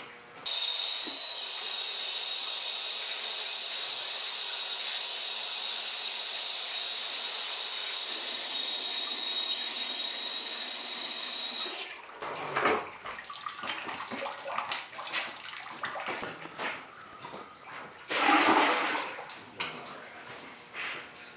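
Water running from a hose at a utility sink, a steady hiss with a faint high whistle, shutting off about 12 seconds in. Scattered knocks follow as the plastic bowl is handled, with a brief louder noise about 18 seconds in.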